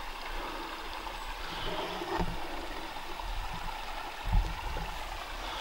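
Steady rushing of a small stream, with a couple of soft low bumps about two and four seconds in.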